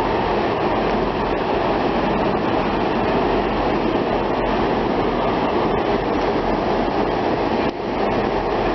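Steady, loud noise of a diesel train running at the station, with a brief dip near the end.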